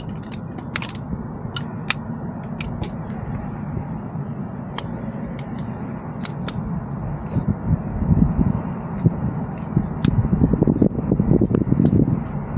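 Poles of a collapsible backpacking chair frame clicking as they are fitted into the hub: about fifteen short, sharp clicks scattered unevenly. Under them a steady rumble of wind on the microphone, gusting louder in the second half.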